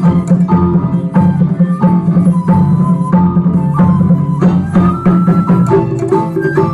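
Live band music mixing Western and Japanese instruments: a steady beat of percussion strokes under plucked and sustained melody notes.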